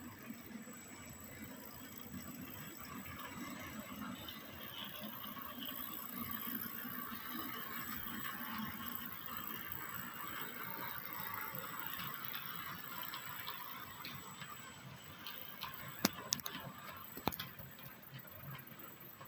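Model train of diesel locomotives and hopper cars rolling along the track, a steady whirring rattle of motors and wheels on rail that grows louder as it passes and fades toward the end. A couple of sharp clicks come near the end.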